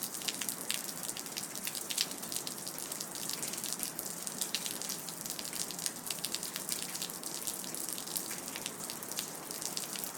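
Rain dripping: many quick, irregular drips ticking over a steady wet hiss.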